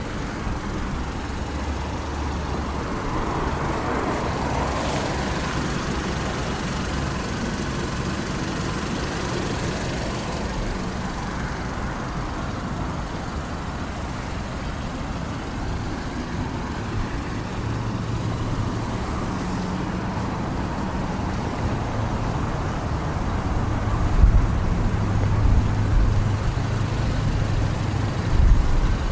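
Steady low hum of a car engine idling, with a haze of traffic noise; a few short low thuds come in over the last few seconds.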